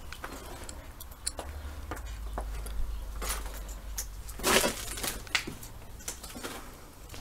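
Scattered clicks, knocks and crunches of footsteps and handling as someone moves through a debris-strewn room, with a louder knock about four and a half seconds in, over a low rumble.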